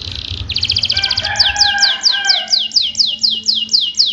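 Domestic canary singing: a fast buzzing trill, then from about a second in a rolling run of repeated down-slurred 'cuit' notes at about six a second.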